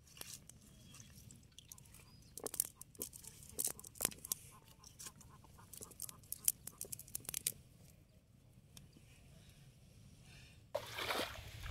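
Scattered short crackles, taps and rustles close by, from a wet cast net and waterweed being handled and a small fish flopping on damp, muddy ground. Near the end a louder steady outdoor background cuts in suddenly.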